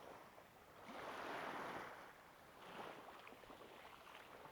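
Faint wash of small waves on the shore, swelling for about a second and then settling back.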